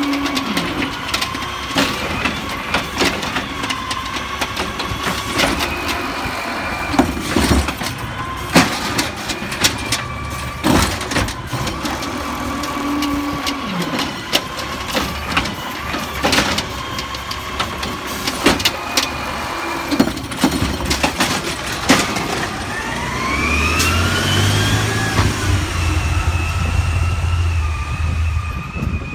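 Amrep automated side-loader garbage truck on an Autocar chassis: the hydraulic arm whines in rising and falling steps as it lifts and dumps a recycling cart, with repeated bangs and clatters from the cart and the falling recyclables. Near the end the truck's natural-gas engine revs with a rising pitch and a low rumble as the truck pulls away.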